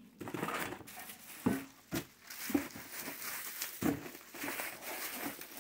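Bubble wrap and cardboard rustling and crinkling as a wrapped part is handled and shifted inside a cardboard box, with a few sharper knocks and taps among it.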